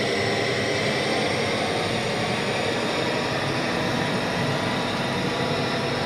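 Radio-controlled model dump truck driving, a steady mechanical running noise with no distinct engine note.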